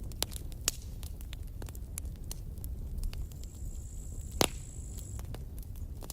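Wood campfire crackling, with scattered sharp snaps over a low steady rumble of the flames. One loud pop comes about two-thirds of the way through, inside a brief thin high-pitched hiss from the burning wood.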